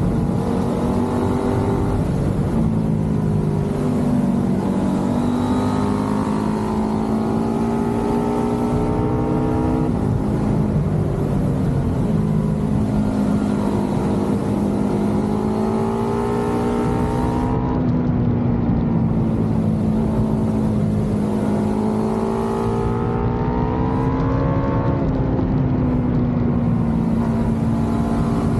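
Motorcycle engine running under way, its pitch climbing and dropping with throttle and gear changes, with a sudden drop about ten seconds in.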